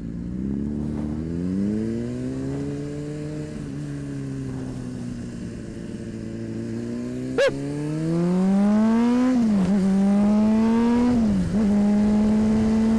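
Honda CBR600RR inline-four engine accelerating under way. The revs climb gently at first, then rise and drop sharply three times in the second half as the rider shifts up through the gears. A single sharp click comes about seven and a half seconds in.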